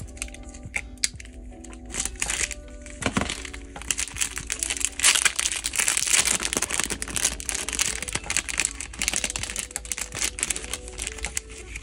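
Thin clear plastic packaging crinkling and crackling as a small jewelry bag and card are handled and opened, heaviest from about halfway in. Background music with held notes plays throughout.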